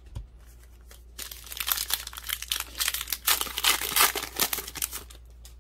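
Foil wrapper of a basketball trading-card pack crinkling as it is torn open and handled, a dense run of crackles from about a second in to about five seconds.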